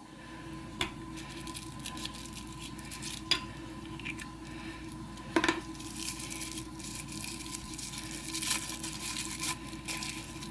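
Miniature toy packaging being opened and handled by hand: crinkling and rustling with scattered sharp clicks and taps, over a faint steady hum.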